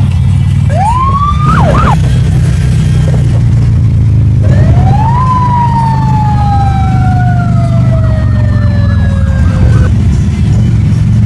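Harley-Davidson motorcycle engines rumbling steadily in a moving convoy, with a siren wailing over them. A short rising-and-falling whoop comes about a second in, then a longer wail that climbs and then slowly falls over about five seconds.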